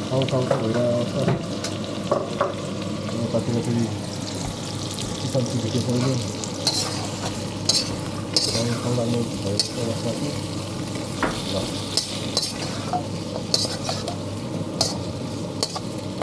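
Meat frying in a pan for a chilli stir-fry, sizzling steadily as it is stirred, with a spatula clicking and scraping against the pan every second or so.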